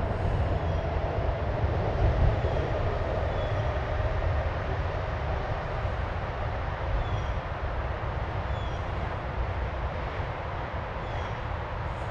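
Steady low rumble with a broad hiss of outdoor background noise, fluttering at the bottom end, with faint short high chirps every second or two.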